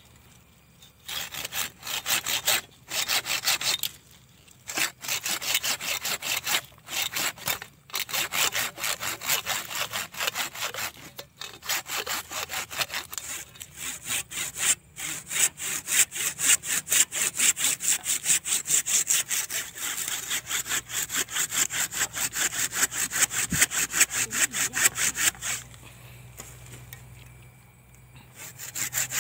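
Curved hand pruning saw cutting through a living fig branch in quick back-and-forth strokes, in runs broken by short pauses. The sawing stops near the end.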